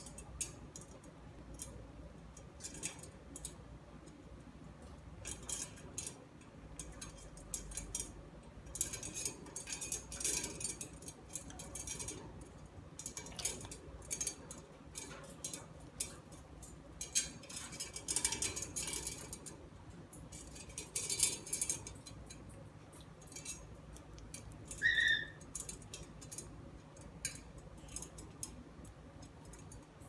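Two yellow-crowned amazon parrots' beaks clicking, crunching and scraping on a small wooden toy as they tug and chew at it, in irregular runs of sharp crackly clicks. One short high squeak late on.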